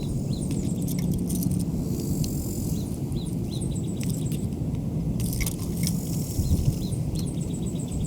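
Wind rumbling on the microphone, with small birds chirping repeatedly and a few brief bursts of light clicking and rustling.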